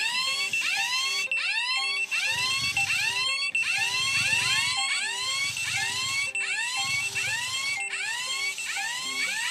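Electronic fire-alarm siren: a rapid run of rising whoops, about three a second, over a steady high beep.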